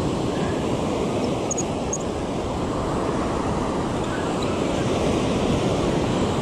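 Ocean surf washing steadily onto the beach, with wind on the microphone.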